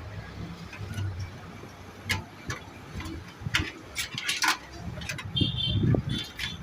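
Scattered clicks and light knocks of computer parts being handled during a PC build, with a brief high squeak about five seconds in.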